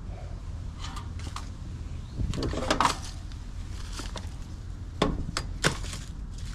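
Scattered light clicks and knocks of tools and small parts being handled, with a cluster of rattling about two and a half seconds in, over a steady low hum.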